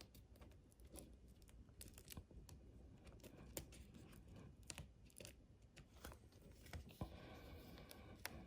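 Faint, scattered light clicks and small scrapes of plastic and metal as a replacement laptop LCD panel and its thin display cable are handled and seated in the screen lid.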